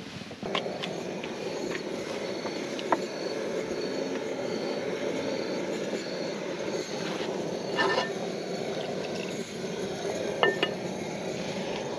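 Cooking pots and utensils clinking a few times, sharpest at about 8 and 10 seconds in, over a steady low rushing noise.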